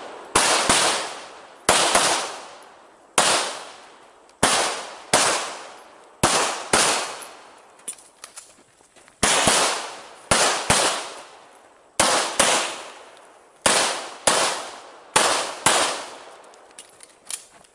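Pistol shots in a fast string, mostly in quick pairs with short pauses between the pairs, each shot trailing off in echo.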